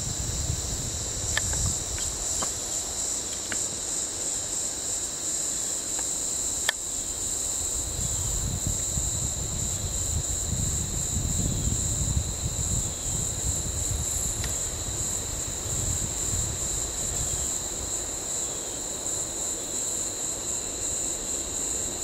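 Steady, high-pitched insect chorus droning without a break, over a low rumble, with a few faint clicks.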